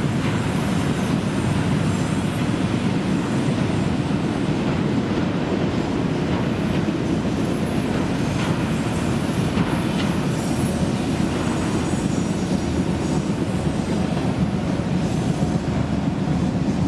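Freight train of autorack cars rolling on the rails: a steady rumble with faint high-pitched wheel squeal.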